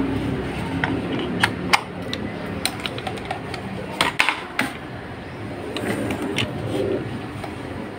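Bare electric stand-fan motor, its blade removed, being plugged in and switched on: a few sharp clicks of the plug and handling over a steady mechanical running noise.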